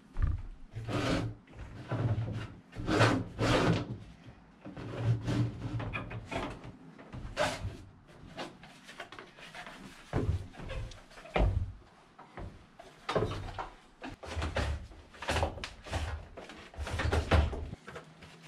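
Irregular knocks, thuds and rubbing as a reel of electrical cable is picked up, carried and unwound, with footsteps on a wooden floor.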